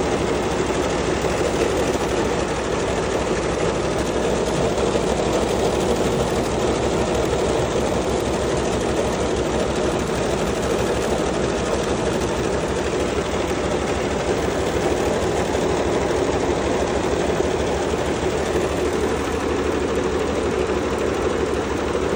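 Row of SWF multi-head commercial embroidery machines running, a steady mechanical chatter with a fast, even needle rhythm.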